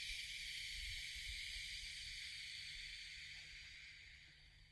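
A long hissing exhale through the mouth, in the 'shhh' of the liver healing sound, slowly fading away over about four seconds.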